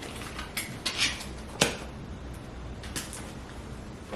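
Items and packaging being handled during an unboxing: a few light clicks and knocks with faint rustling, the sharpest click about a second and a half in.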